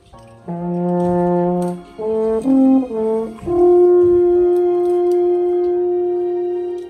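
Two alphorns played together in harmony: a held two-note chord, a few shorter stepping notes, then one long sustained note that fades away near the end.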